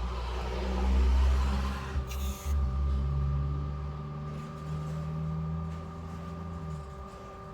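A machine's motor running with a low rumble and a steady whine, with a hiss over the first couple of seconds and a brief sharper hiss about two seconds in.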